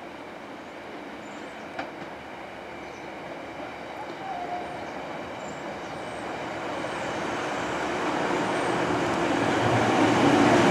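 Class 150 Sprinter diesel multiple unit approaching, the noise of its underfloor diesel engines and wheels on the rails growing steadily louder as it nears.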